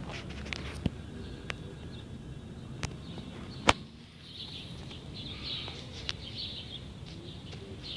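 Outdoor background noise with a few scattered sharp taps and one loud, sharp knock about halfway through.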